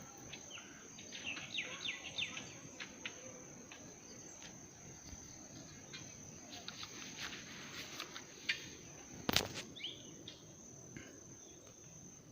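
Steady high-pitched drone of forest insects, with short bird-like chirps and scattered light clicks over it, and one sharp snap about nine seconds in.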